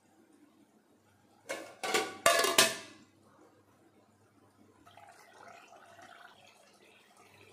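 A thin aluminium lid set down on an aluminium pot of water: four quick metallic clanks with a short ringing tail, about a second and a half in, the last two the loudest.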